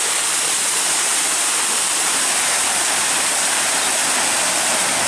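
Floodwater rushing and spraying as a pickup truck's tyres churn through a deep flooded street, a loud, steady hiss of water.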